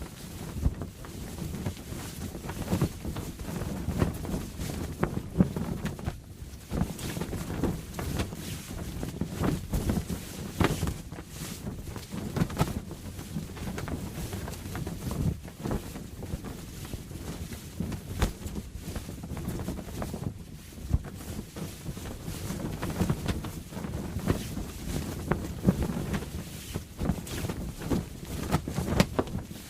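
Canvas sail flapping and snapping in strong wind, with irregular sharp cracks over a gusty rush of wind.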